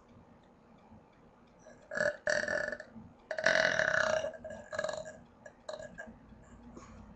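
A person burping on purpose into a webcam microphone: a short burp about two seconds in, a longer and loudest burp about a second later, then a couple of smaller ones.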